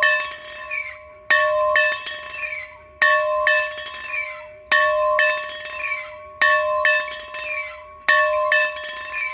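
A bell rung in a steady rhythm: a strike about every 1.7 seconds, each followed about half a second later by a lighter clank. Each ring hangs on and fades before the next strike.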